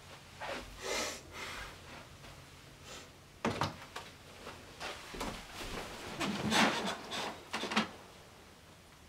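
Handling and movement sounds: soft rustles, a sharp knock about three and a half seconds in, then a run of rustling of bedding and a pillow as someone settles onto a bed, dying away near the end.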